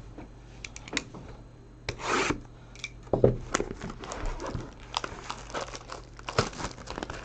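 Cardboard trading-card hobby box being handled and opened: rubbing and scraping with scattered small clicks and taps, and a short rasping tear about two seconds in.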